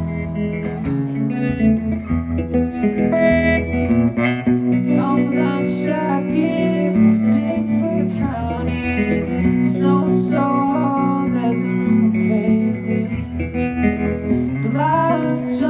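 Electric guitar played live through an amplifier: an instrumental passage of picked melody notes over chords, with no vocals.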